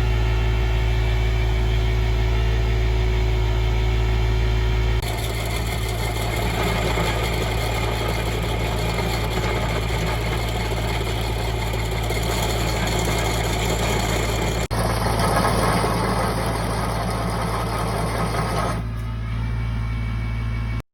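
Mini excavator's engine running steadily with heavy machine noise from the planer attachment's hydraulics. The sound changes abruptly about five seconds in and again near fifteen seconds, as if cut between takes.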